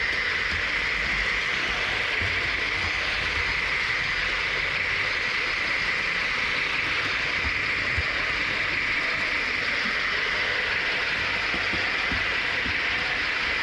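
Viessmann 2680 Unimog rail model running along the track, heard close up: a steady running noise with a few faint low ticks, the loudest about 8 seconds in.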